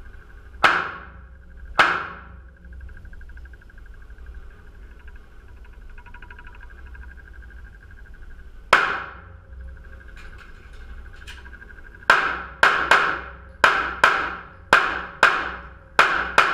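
Pistol shots with a short echo: two single shots, then after a pause a third, then a rapid string of about nine shots roughly half a second apart. A steady hum runs underneath.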